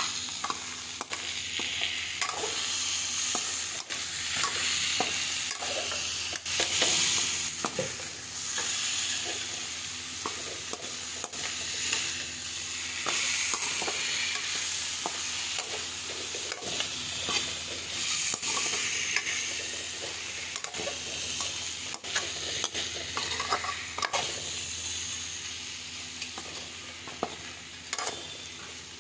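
Spinach and potato curry sizzling in an aluminium kadhai while a slotted spoon stirs it, scraping and knocking against the pan again and again as the dish finishes cooking.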